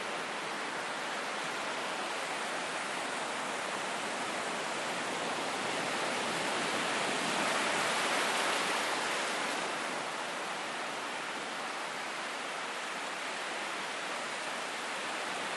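Ocean surf washing continuously up close, a dense steady rush of breaking water that swells a little louder midway through before easing back.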